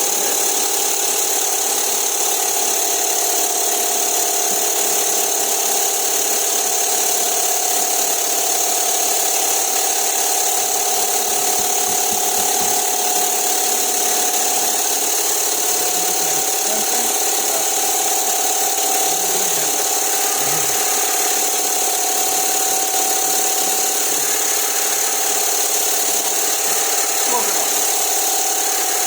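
A machine running steadily, giving a constant hum with a high hiss over it.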